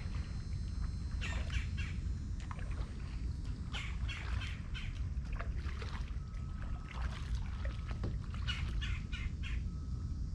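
Kayak paddle strokes splashing and dripping at intervals, with birds squawking and chirping, over a steady low rumble.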